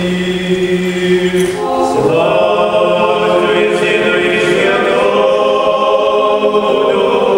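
Unaccompanied Byzantine-rite funeral prayer chant: a lower voice holding a steady note, then about two seconds in several voices take up a higher, sustained chant together.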